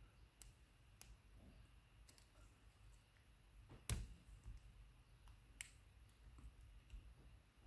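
Near silence broken by a few faint, sharp metal clicks of small tools working at the lock cylinder's circlip, the loudest about four seconds in.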